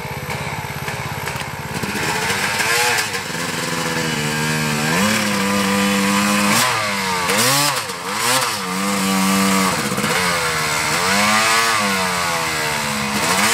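Dirt bike engines revving up and down repeatedly as the bikes climb a rutted dirt trail, getting louder as a bike comes close near the end.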